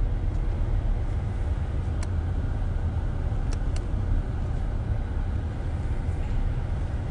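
Steady low rumble with a few faint clicks about two and three and a half seconds in.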